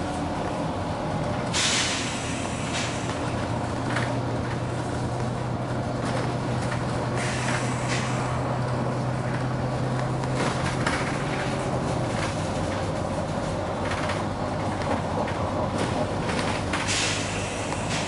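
Volvo B9TL double-decker bus heard from inside while driving: the diesel engine and drivetrain drone steadily, dropping in pitch about twelve seconds in. Short hisses of released air cut in about a second and a half in, around seven seconds, and again near the end.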